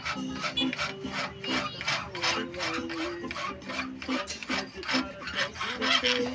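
A long hand file draw-filing the edge of a steel bolo blade clamped in a vise: steel rasping on steel in even back-and-forth strokes, about two a second.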